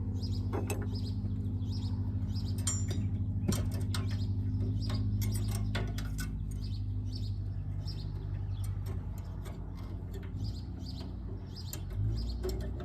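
Small birds chirping over a steady low machine hum, with scattered sharp clicks from small metal parts being handled.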